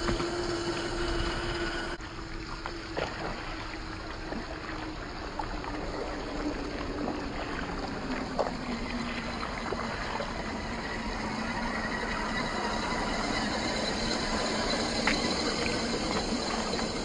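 A 1/10-scale RC crawler's 540 brushed electric motor whining as it drives through shallow flood water, with water splashing and rain hissing. The whine holds steady, drops in pitch about two seconds in, and then sinks slowly lower.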